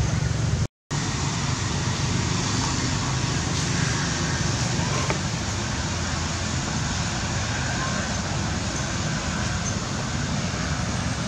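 Steady outdoor ambience: a low rumble under an even hiss, with the sound cutting out for a moment near the start.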